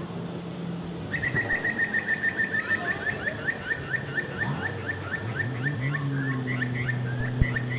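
A bird calling in a rapid run of short, high, down-slurred chirps, several a second, starting about a second in and thinning out toward the end. From about five seconds a low engine hum rises in pitch and then holds steady under it.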